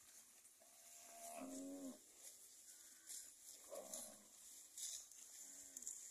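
Zebu cattle of a moving herd mooing faintly: three calls, a long one about a second in, another around the middle, and a short one near the end.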